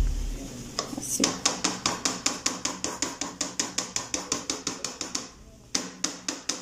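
Plastic bean masher clacking against an aluminium pot while mashing frying refried beans. It goes at a quick steady rhythm of about five strokes a second, with a short pause about five seconds in.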